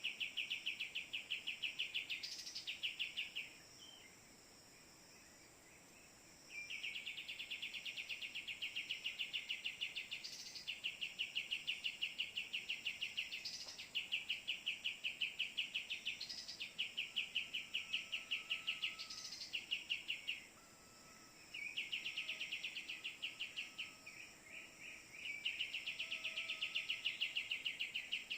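Pied triller (kapas tembak) calls: fast, evenly pulsed buzzy trills in bouts of a few seconds, repeated with short pauses, as played from a phone to lure the bird. A faint thin high note holds steady underneath in the second half.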